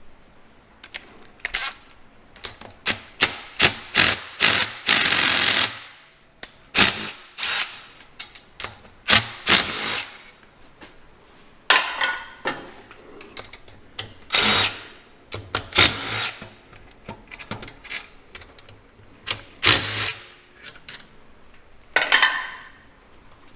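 Handheld power tool run in repeated short bursts, with one longer run about five seconds in, taking the bolts out of the back section of a tractor PTO unit.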